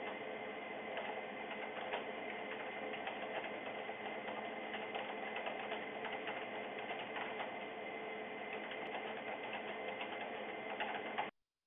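Rapid typing on a computer keyboard: a continuous clatter of key clicks over a steady room hum, cutting off suddenly about 11 seconds in.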